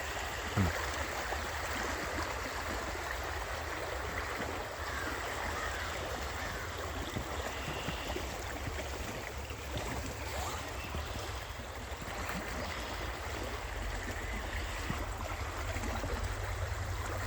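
Steady rushing of running water, like a stream, with a short falling tone just after the start.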